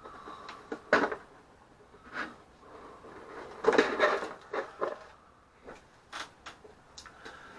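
Cardboard model-kit box being handled and set down on a cutting mat: a series of short knocks and scrapes, the loudest about four seconds in.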